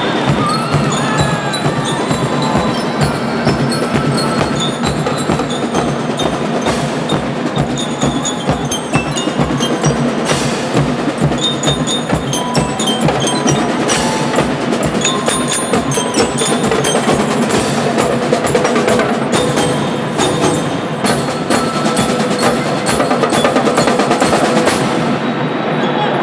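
Marching band drumline and bell lyres playing: bass drums and snare drums beat a fast, dense rhythm while metal-bar lyres ring out a melody above them.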